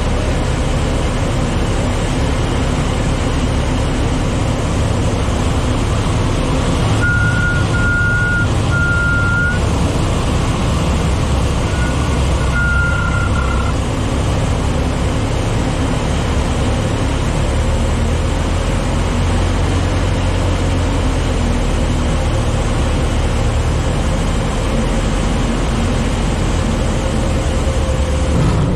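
Citabria's four-cylinder Lycoming engine and propeller running steadily on landing approach, with wind rush over the airframe. A high beeping tone sounds in short runs twice, about seven and twelve seconds in.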